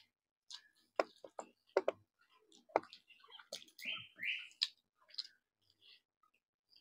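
Eating sounds of chicken curry and rice: a run of short, wet clicks and smacks from chewing and lips, with two brief hissing sounds about four seconds in.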